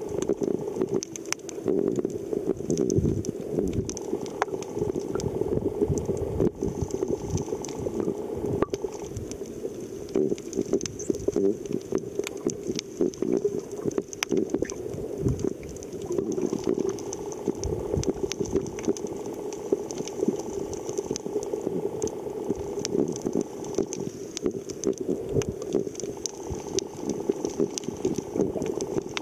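Muffled underwater sound picked up by a submerged camera: steady water noise with many small clicks and pops.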